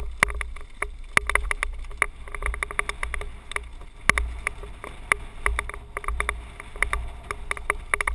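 Mountain bike rattling over a rough dirt trail at speed: a rapid, irregular string of knocks and clicks, over a steady low rumble of wind on the helmet-mounted microphone.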